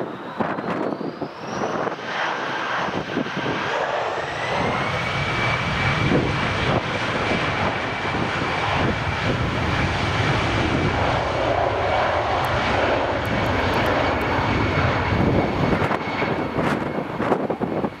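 Twin jet engines of an easyJet Airbus A319 spooling up to takeoff thrust as the airliner starts its takeoff roll. A whine rises over the first five seconds, then holds steady over a continuous engine roar.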